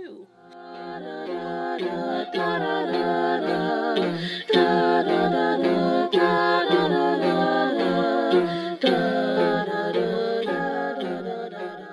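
Intro music of a cappella singing, voices holding notes together in harmony, fading in over the first two seconds and fading out near the end.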